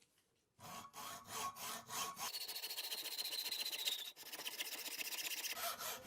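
Hacksaw cutting a length of M4 stainless threaded rod: a few slower strokes about half a second in, then fast, even back-and-forth rasping with a thin metallic ring that stops near the end.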